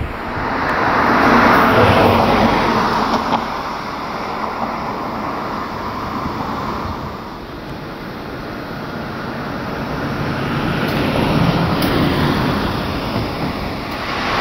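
Passing road traffic: vehicle noise that swells up and fades away, once a second or so in and again near the end.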